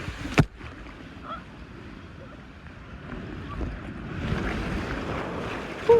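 Rushing, splashing water with wind buffeting the microphone, growing louder about four seconds in. There is a sharp knock near the start.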